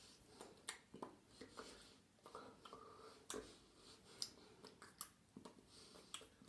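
Near silence in a small room, broken by scattered faint clicks and rustles from hand and clothing movement, about one every second or so.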